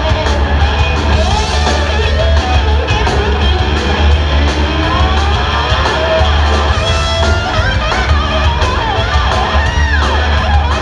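Live rock band playing loudly: electric guitars with sliding, bending notes over drums, bass and keyboards.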